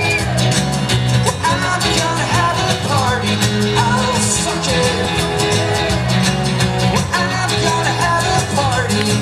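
Live acoustic rock band playing through a festival PA, heard from the crowd: strummed acoustic guitars over steady low notes, with a sung melody.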